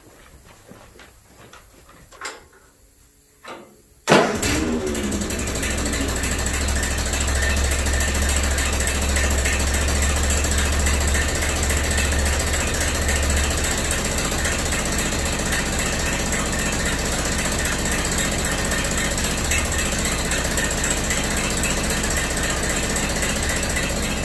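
1952 Ford 8N tractor's four-cylinder flathead engine starting suddenly about four seconds in, after a couple of faint knocks, then running steadily. It has a really bad exhaust leak at a clamp.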